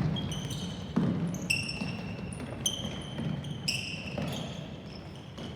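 Shoes squeaking again and again on a hard indoor court floor as players run and turn, with a ball thudding at the start and again about a second in.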